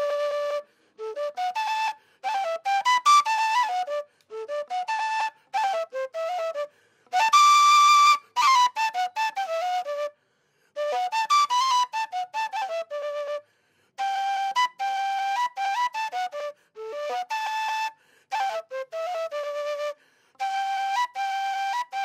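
Solo Colombian gaita, a duct flute, playing a melody in short phrases with brief pauses between them and no accompaniment. There is one long held high note about a third of the way in.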